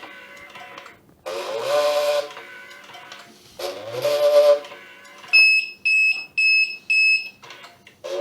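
Label and ribbon cutting machine running through its feed-and-cut cycles: two bursts of motor noise about a second long, each starting with a rising whine, a couple of seconds apart. These are followed by four short, high electronic beeps about half a second apart.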